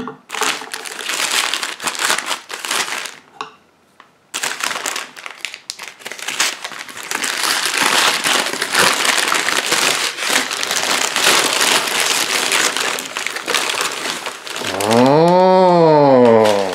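Brown kraft-paper wrapping being slit with a knife, torn open and crumpled, with a short pause early on. Near the end a drawn-out vocal sound rises and then falls in pitch.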